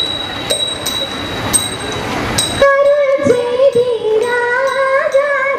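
Margamkali song with a metallic beat struck about twice a second. For the first two and a half seconds the beat rings over crowd noise, then the sound changes abruptly to a high voice singing long held notes over the same beat.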